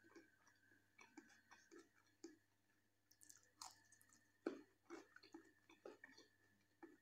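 Quiet, close-miked chewing of raw cucumber slices, with irregular crisp crunches and wet mouth sounds; the loudest crunch comes about four and a half seconds in.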